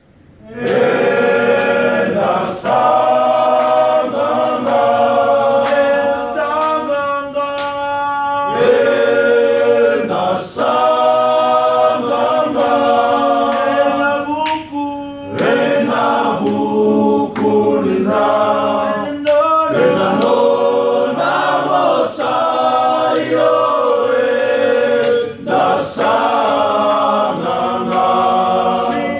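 A large group of Fijian men singing a hymn a cappella as a choir, in long phrases with short breaks between them.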